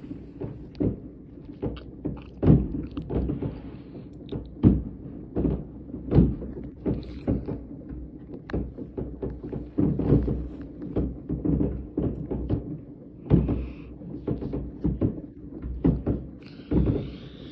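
Fireworks going off at a distance: an irregular string of dull bangs and thuds, several a second at times, with a low rumble between them.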